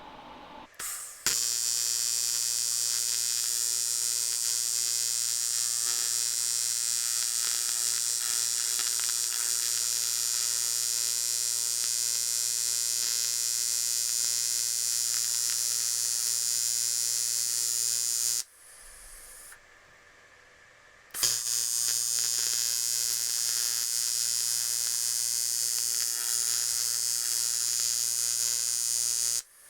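Electric welding arc running on a crack in an aluminium alloy wheel: a steady buzzing hiss with a hum beneath it. It strikes about a second in, stops for about three seconds near the middle, then runs again until just before the end.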